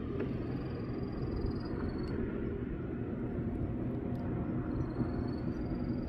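Outdoor coastal ambience: a steady low rumble, with faint high-pitched trills repeating several times.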